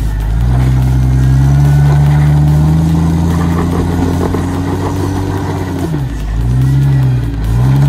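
Jeep Cherokee XJ engine working under load as it climbs a rocky ledge, held at steady revs for several seconds. About six seconds in it is revved up and down in short blips, twice.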